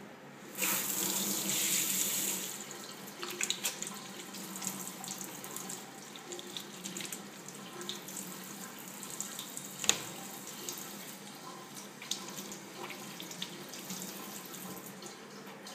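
Kitchen tap running into a stainless steel sink while a cucumber is rinsed under the stream. The water gushes loudest for the first couple of seconds, then runs on more softly, with scattered knocks against the sink, the sharpest near the middle.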